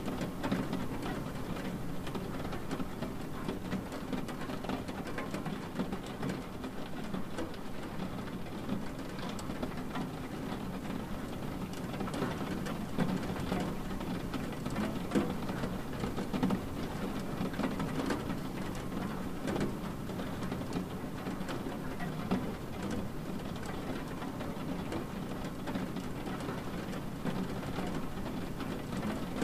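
Rain on window glass: a steady wash of rain with many small drops ticking, over a low rumble.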